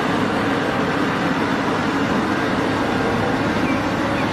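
Cat 6015B hydraulic mining excavator at work, its diesel engine running steadily with a low hum as sand pours from its bucket into a dump truck.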